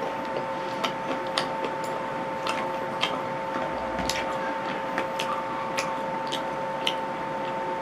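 Close-up chewing of crunchy fried food, with irregular crisp crunches and clicks a few times a second over a steady background hum.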